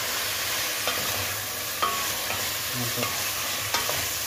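Vegetables frying with a steady sizzle in a stainless steel pot as they are stirred with a wooden spatula, which knocks against the pot several times.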